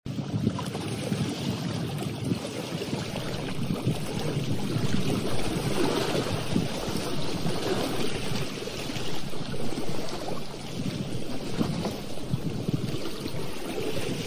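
Wind blowing across the microphone over choppy lake water, with small waves splashing; a steady, wavering rush with no distinct thunderclap.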